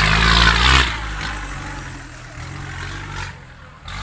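Small tractor's engine revving hard under load, loud for the first second or so, then dropping to a lower, steadier run.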